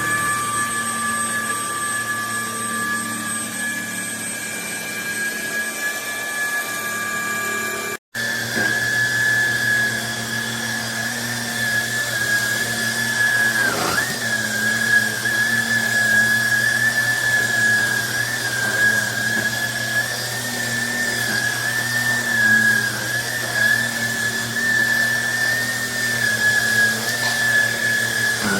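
Small cordless handheld vacuum cleaner running, its motor giving a steady high whine. The sound cuts out for an instant about eight seconds in and comes back, then wavers slightly in pitch and dips briefly near the middle.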